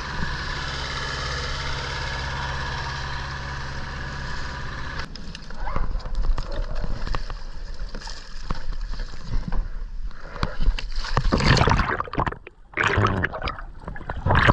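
Small boat's outboard motor running steadily, then cutting off suddenly about five seconds in. Water slapping and sloshing against an inflatable boat follows, then a loud rush of splashing and bubbling near the end as a diver goes into the sea.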